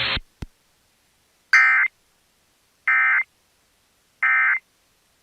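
Three short bursts of Emergency Alert System (SAME) digital data tones, each about a third of a second and a little over a second apart: the end-of-message code that closes a broadcast warning. A single click comes just after the start as the alert's audio cuts off.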